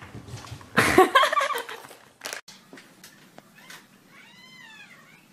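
A house cat meows once near the end, a short call that rises and then falls in pitch. About a second in there is a louder, brief noisy burst.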